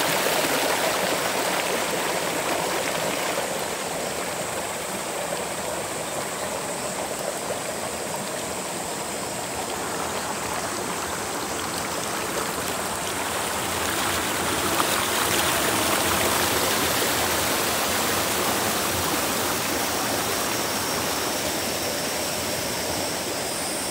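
Water of a woodland stream flowing steadily over rocks, a dense even wash of noise that eases a little midway and swells again.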